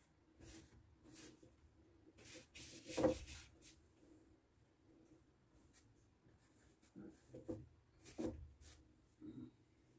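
A painting tool rubbing across a stretched acrylic canvas in short, irregular strokes, faint throughout. A soft knock, the loudest sound, comes about three seconds in, and a few more strokes follow near the end.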